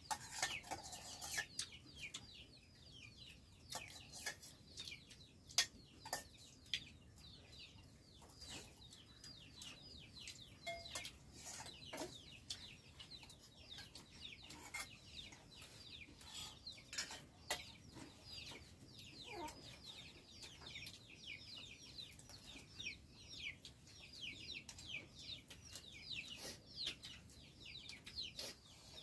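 Chickens clucking and chirping: many short, high, falling chirps, several a second, with scattered sharp clicks.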